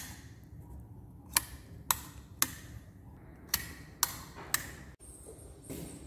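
Six sharp clicks or knocks in two groups of three, about half a second apart within each group.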